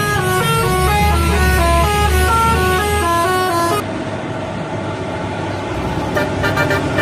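Bus telolet horn playing a quick melody of stepped pitched notes, which cuts off abruptly about four seconds in. It gives way to steady road traffic and engine noise.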